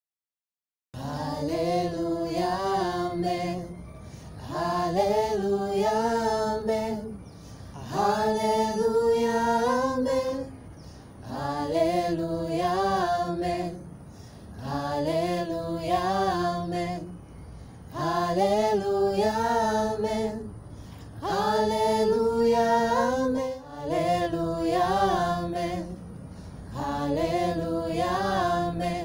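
A small group of young voices, men and women, singing a Swahili worship song a cappella, starting about a second in. The singing comes in phrases of two to three seconds with short breaks between them.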